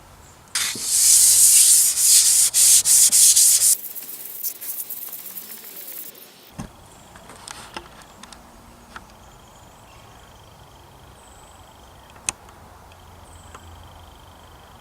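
Natural sharpening stone being lapped on a glass plate with 800-grit silicon carbide slurry: a gritty rubbing in several quick, loud strokes, then fainter, stopping after about six seconds.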